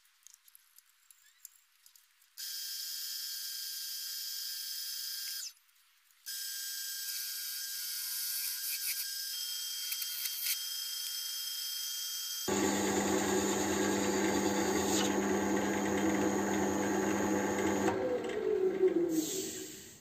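Wood lathe running with a walnut vase spinning on it, a steady motor whine that gets louder and fuller about two-thirds in. Near the end the pitch falls as the lathe spins down.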